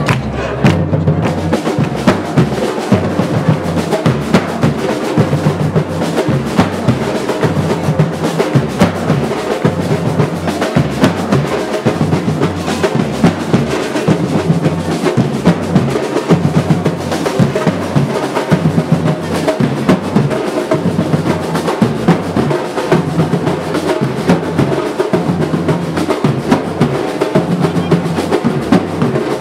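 Drums playing a fast, unbroken rhythm of snare rolls and bass-drum beats, with no pause.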